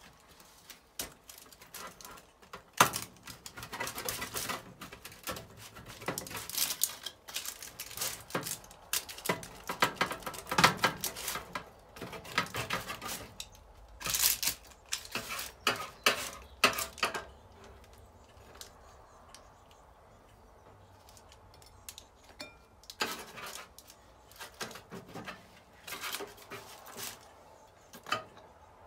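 Rolling pizza cutter slicing through a baked pizza on a parchment-lined metal baking tray: close, irregular crunching, crinkling and scraping clicks, which thin out for several seconds past the middle. Near the end a slice is worked loose and lifted with a server, scraping over the paper and tray.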